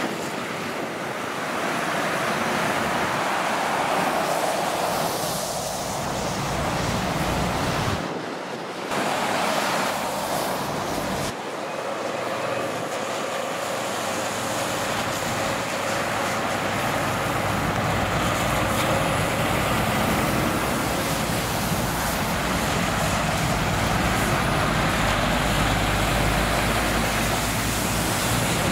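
Steady noise of motorway traffic: the tyres and engines of cars and lorries running by. A deeper rumble builds through the second half as heavier vehicles pass.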